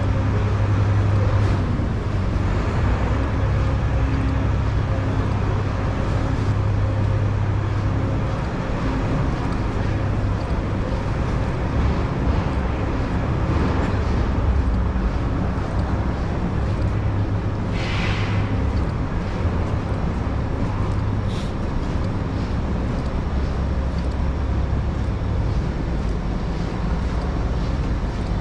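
City street traffic: a steady low rumble of vehicle engines under a general haze of street noise, with one short hiss about two-thirds of the way through.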